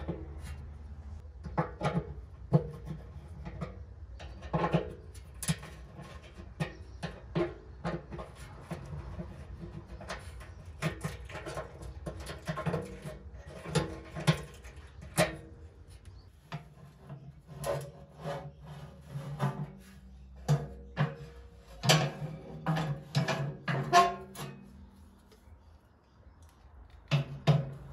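Irregular clicks, taps and scrapes of hand tools on metal: a screwdriver working the terminal screws of an electrical socket, then a socket tool and spanner on the nuts of a pottery wheel's drive-assembly mounts. Music plays underneath.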